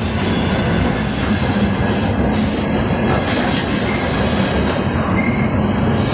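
Train running along the rails with a steady rumble and rushing noise, and no distinct clickety-clack of wheels over rail joints.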